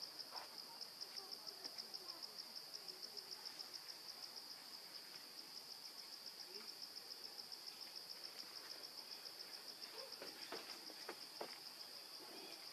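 An insect chirring steadily, a high, rapid, evenly pulsed trill, with a few faint clicks near the end.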